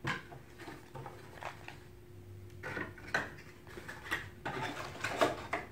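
Cardboard packaging and a small plastic TV box being handled: a few scattered clicks, knocks and rustles.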